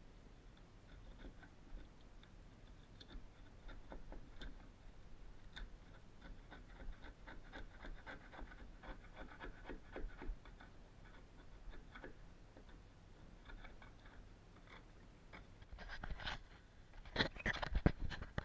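A hand scraper blade scratching and scraping along the edge of the caravan floor, with small clicks and crunches as crumbly debris is cleared from the channel. A run of louder knocks and rustles comes near the end.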